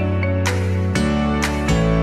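Background instrumental music with plucked, guitar-like notes struck about twice a second over held bass notes.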